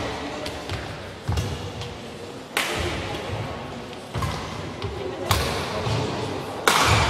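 Badminton rally: sharp racket hits on a shuttlecock about every second and a half, some with heavy thuds of players' feet landing on the court. The hits echo in the hall, and the loudest comes near the end.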